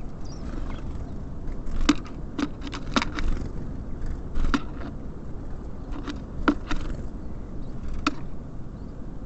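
Small birds pecking and tapping at seed on a bird feeder: a dozen or so sharp, irregular taps, a couple of them louder knocks, over a low steady rumble.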